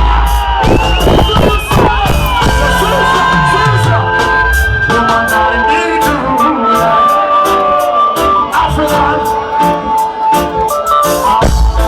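Live reggae band playing loudly through a concert PA, with sharp drum hits, held keyboard or horn notes and a falling bass slide about three seconds in.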